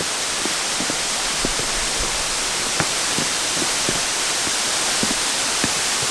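Steady rush of water from a rain-swollen waterfall or creek, with scattered light knocks or ticks through it.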